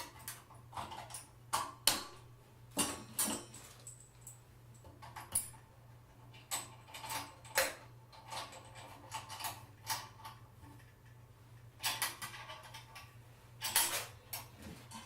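Light metallic clicks and clinks as lamp sockets are tightened down with a small wrench and hand-handled on the metal base. The taps come irregularly, a few every second.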